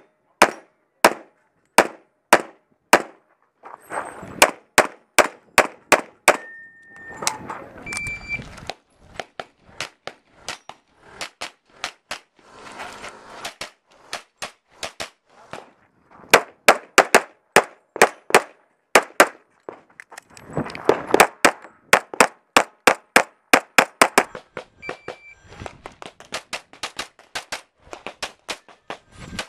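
Semi-automatic pistol fired rapidly in strings of shots, many in quick pairs, with short pauses between strings.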